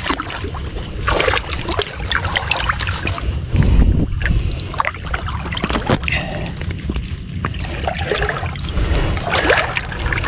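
Shallow muddy water sloshing and splashing in short irregular bursts as someone wades and reaches into it by hand, grabbing for a bullfrog.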